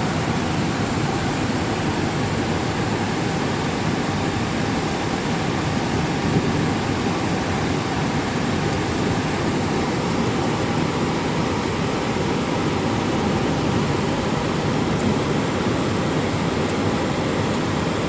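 Heavy rain falling: a steady, even noise with no breaks.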